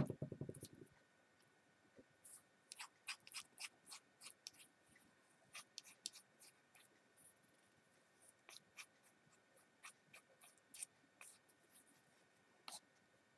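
A knock at the start, then faint, irregular little ticks and scrapes as thick white tacky glue is wiped off a plastic measuring spoon into a glass bowl of breadcrumbs and cornstarch.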